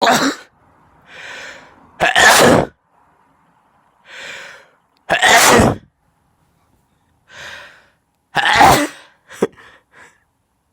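Repeated sneezing, four loud sneezes in a row, each of the last three preceded by a shorter, softer intake of breath, followed near the end by a few brief short sounds.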